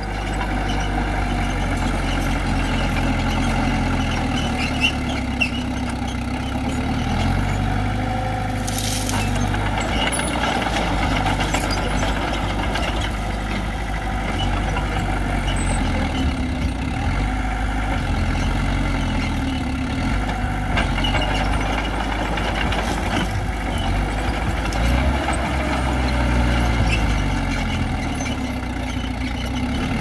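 Heavy diesel earthmoving machinery, a bulldozer and trucks, running continuously, with the engine note shifting up and down several times. A short hiss about nine seconds in.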